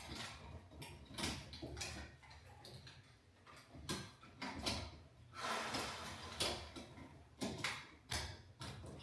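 Irregular clicks, knocks and rustling from hands working the wiring and plastic junction boxes of LED can lights, with a longer rustle about halfway through.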